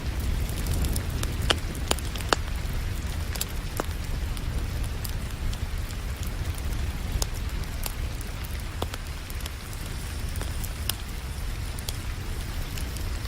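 Wood fire crackling, with sharp pops at irregular moments, over a steady hiss of falling rain and a low, constant rumble.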